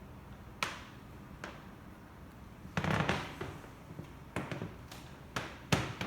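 A series of sharp knocks and clicks at uneven intervals, with a short clatter about three seconds in and the loudest knock near the end.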